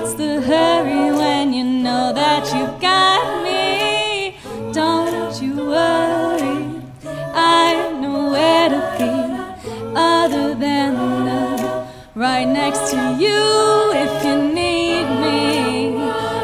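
A cappella vocal group singing a pop song arrangement in close harmony, voices alone with no instruments, over a steady low sung bass line.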